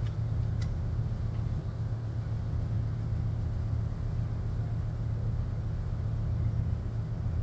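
Steady low mechanical rumble, like a running motor, unchanging throughout.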